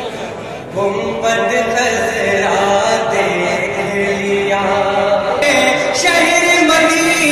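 A man chanting a devotional recitation into a microphone, in long, held notes that bend in pitch.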